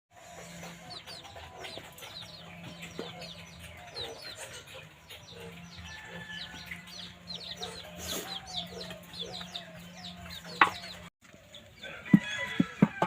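Farmyard chickens clucking, with many short high chirps over one another. A few sharp knocks come near the end.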